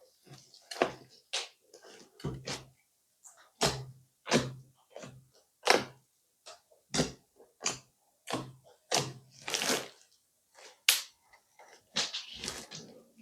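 Crunchy slime being pressed and worked by hand: a string of short crackles and pops at uneven intervals, about one or two a second.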